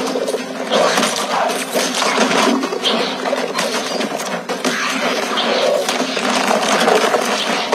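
Dense film sound-effects mix of a building collapsing: crumbling concrete and debris noise, steady and loud.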